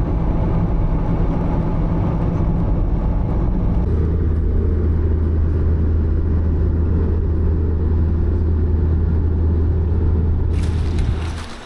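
Steady low rumble of a running vehicle. Its low hum changes pitch about four seconds in, and the sound drops away at the very end.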